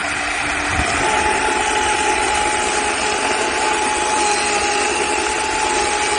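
Ryobi battery-powered chainsaw running and cutting through a fallen tree trunk. It makes a steady electric whine over the rasp of the chain in the wood, and the whine steps up in pitch about a second in.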